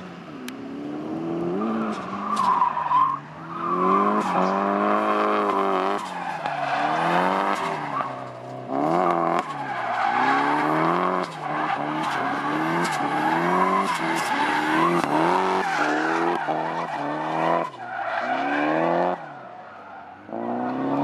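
A drifting car's engine revving up and down over and over as the throttle is worked through the slide, with tyres squealing and skidding on the asphalt.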